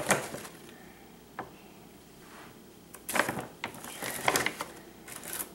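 Paper bag of baking soda rustling and crinkling in several short bursts as a hand scoops around inside it.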